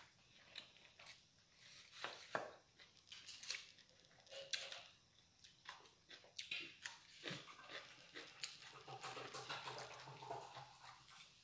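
Faint, scattered clicks and light clinks of dishes and cutlery at a meal table, with near silence in between.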